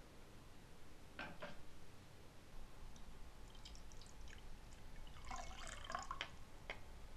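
Liquid poured from a plastic cup through a funnel into a bottle, a short splashing trickle about five seconds in. Before it come a few light knocks and clicks of kitchen utensils.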